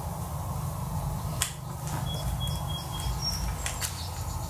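A few light clicks from a stack of metal ring magnets and a nut on a threaded rod being handled, the sharpest about a second and a half in, with faint brief high squeaks, over a steady low hum.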